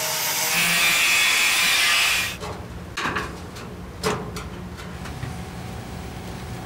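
A loud, steady hissing shop-tool noise that cuts off sharply a little over two seconds in, followed by a few separate knocks and scrapes of hand tools on the car's metal.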